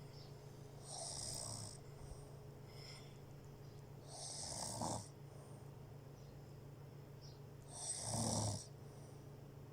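Snoring during sleep: three breathy snores about three and a half seconds apart, over a steady low hum.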